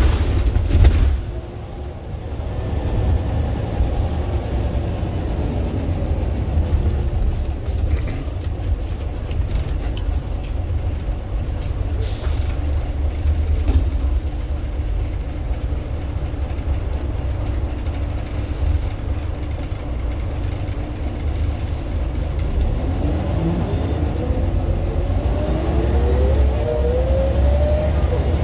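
Scania bus's diesel engine running with a heavy low rumble, with short air-brake hisses near the start and about halfway through. Near the end the engine picks up speed, a rising whine as the ZF automatic gearbox pulls the bus away.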